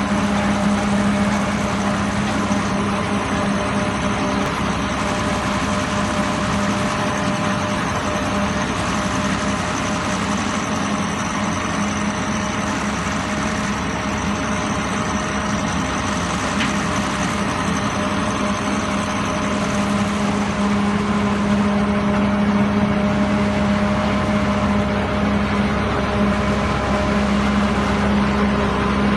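Engine of a cement pile-driving machine running steadily, a constant hum with no distinct blows.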